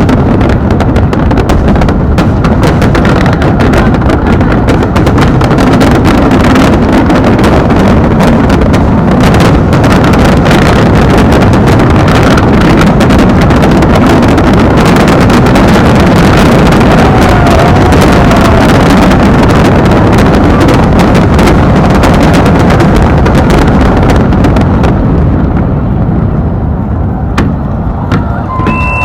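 Fireworks going off in a rapid, continuous barrage: a dense rumble of booms and crackles loud enough to overload the microphone, easing off in the last few seconds.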